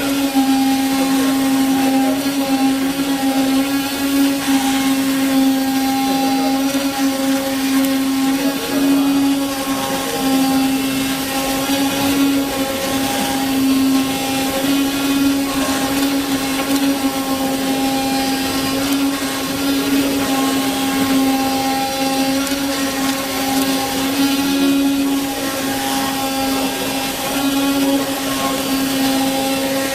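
Ruizhou CNC leather cutting machine running: a steady motor hum with a whirring edge, wavering slightly in level.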